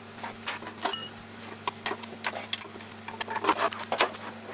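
Irregular clicks, taps and light knocks of metal and plastic parts being handled as the mini lathe's end gear cover is taken off, over a steady low hum.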